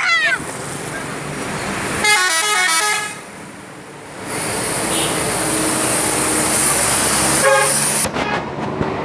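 Indonesian 'telolet' multi-tone bus horn playing a short tune: one arching note at the start, then a quick run of stepped notes about two seconds in. From about four seconds a loud steady rush of noise takes over, broken by one more short horn burst near the end.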